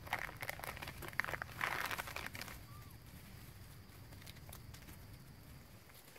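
Dry leaf litter crackling and rustling under macaques moving over the forest floor, with a few sharp crunches; loudest in the first two and a half seconds, then only the odd faint crackle.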